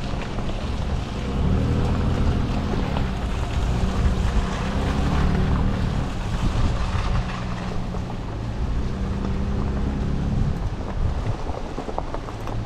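Toyota Tundra pickup's engine running steadily at low revs while crawling along a dirt trail, heard from inside the cab over a rumble of road noise and a few small knocks. The engine note eases off about two seconds before the end.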